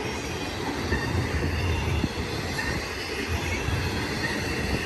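BNSF intermodal freight train of containers and trailers on flatcars rolling past, a steady rumble and rattle of wheels on the rails.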